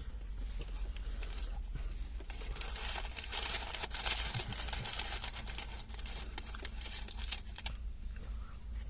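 Close, irregular crackling and rustling from a McDonald's meal being handled and eaten, busiest in the middle few seconds, over a steady low hum.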